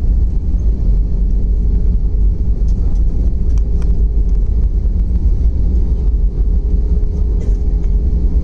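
Airliner cabin noise during the landing rollout: a loud, steady low rumble from the wheels on the runway and the engines, with a steady hum over it.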